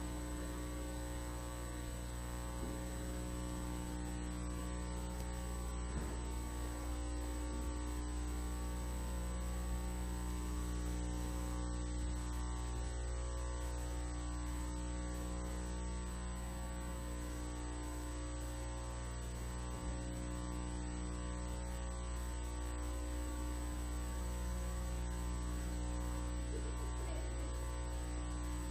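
Steady electrical mains hum: a low, unchanging drone with a stack of overtones above it, with a faint tick about six seconds in and another near twenty seconds.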